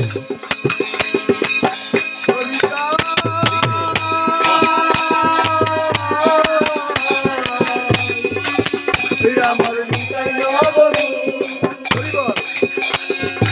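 A male voice singing a Bengali devotional song (kirtan), accompanied by a hand drum and fast rhythmic percussion. Held, wavering sung notes run through the middle, and deep drum strokes recur every second or two.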